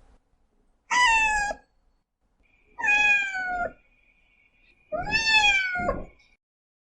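Domestic cat meowing three times, each meow high-pitched, about a second long and falling slightly at the end, spaced about two seconds apart.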